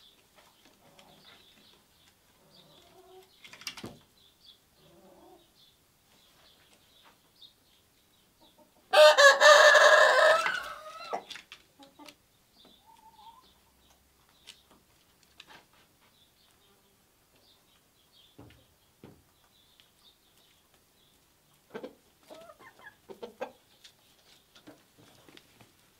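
Rooster crowing once, a loud call of about two seconds about a third of the way in, with quiet clucking and chirping from hens around it.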